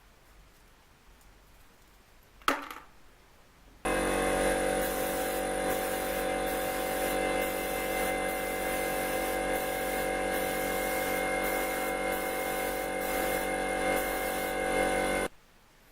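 Excalibur 21 scroll saw running steadily. It starts abruptly about four seconds in and stops abruptly near the end. A single sharp click comes shortly before it starts.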